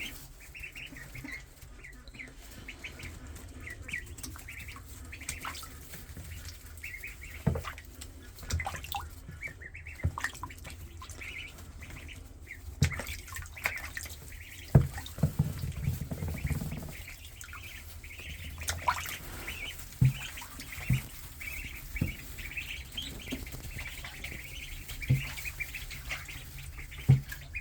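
Young Khaki Campbell ducklings peeping continually in short high chirps, with scattered short knocks and taps among them.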